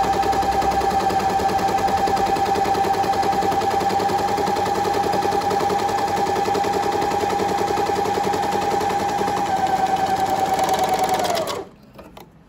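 Janome 8002D four-thread overlocker running at a steady high speed, sewing a trial wide-overlock seam with its cutting knife disengaged: a steady motor whine over the rapid even chatter of needles and loopers. It slows and stops about a second before the end, followed by a couple of faint clicks.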